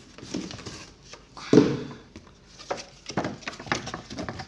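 Cardboard packaging handled: a Funko Pop box is pulled out of a cardboard shipping box, with irregular scrapes and knocks of cardboard on cardboard, the loudest a thump about one and a half seconds in.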